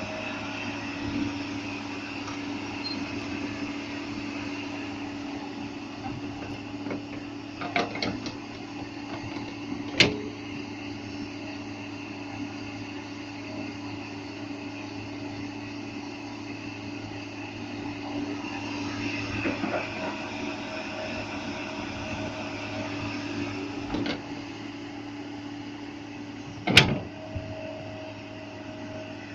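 Excavator diesel engine running steadily, with a few sharp metallic knocks, the loudest near the end.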